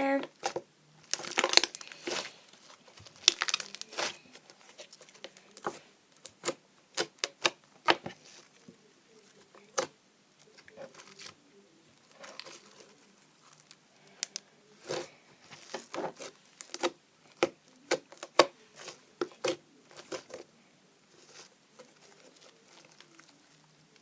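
Homemade slime being squeezed and worked by hand, giving irregular crackling clicks and pops, several a second, that thin out near the end.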